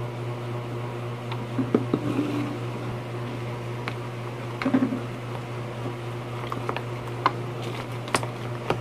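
A plastic spoon stirring a wet slime mixture in a plastic tub, with scattered light clicks and scrapes of the spoon against the tub, over a steady low hum from an electric fan.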